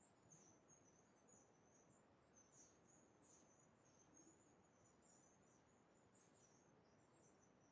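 Near silence, with faint high-pitched chirping throughout.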